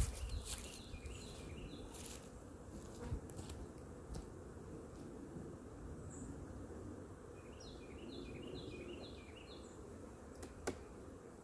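Honeybees humming around an opened hive, a steady low buzz. A short run of high chirping notes comes twice, near the start and about eight seconds in, and a sharp click sounds near the end.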